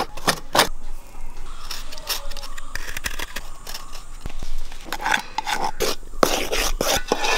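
Hands rubbing and crumbling grated coconut, then breaking a lump of jaggery, then a spoon scraping through flour in a steel tin: a string of short rubbing, crumbling and scraping sounds with brief pauses between them.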